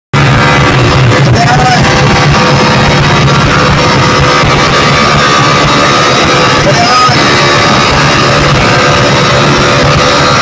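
Very loud music blasting from large DJ sound-system speakers, dense and heavy in the bass.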